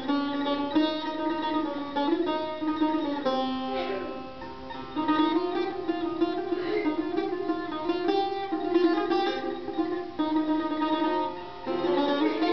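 Solo Persian tar played with a plectrum: a melody in the Abu Ata mode of Persian classical music, running in quick plucked notes. It softens briefly about four seconds in, then picks up again about a second later.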